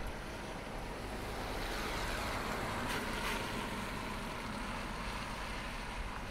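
Steady hiss of rain and wet street, with a car's tyres swishing on the wet road, swelling near the middle and fading away.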